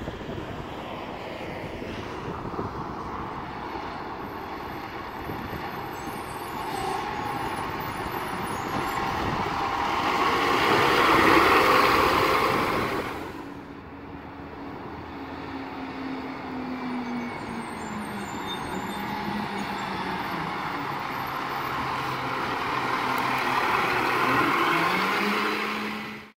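Two garbage trucks driving past one after the other. A 2016 Autocar ACX with a Heil PowerTrak body rises to a loud pass-by about eleven seconds in and fades. Then a 2019 Autocar McNeilus truck approaches, its engine note falling slowly and climbing again near the end.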